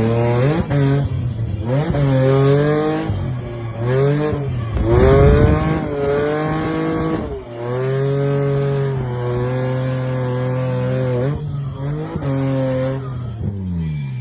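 Drift car engine on track, revving up and dropping back several times, then holding steady revs for a few seconds while sliding, with some tire squeal.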